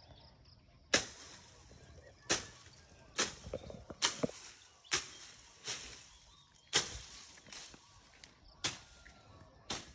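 A series of sharp slaps or taps, about one a second and unevenly spaced, over faint outdoor background.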